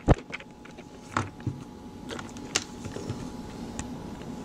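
Desk handling noise: a handful of scattered short clicks and light taps, the loudest right at the start, over a faint steady hum.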